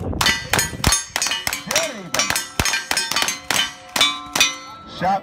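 Rifles fired in quick succession at steel plate targets: a rapid, uneven run of sharp cracks, each hit followed by the ringing clang of the struck steel.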